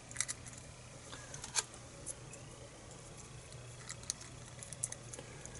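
Faint, scattered small clicks and taps of a padlock and small metal tools being handled, over a low steady hum.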